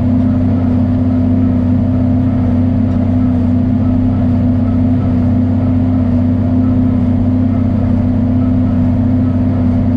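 John Deere 4430 tractor's six-cylinder diesel engine running at a steady speed, a constant drone that holds one pitch.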